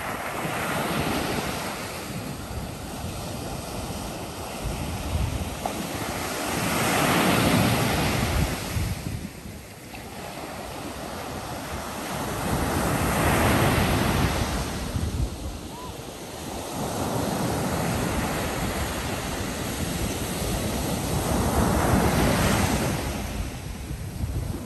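Ocean surf breaking and washing up a sandy beach, the rush swelling and fading with each wave, loudest about every six to eight seconds. Wind buffets the microphone.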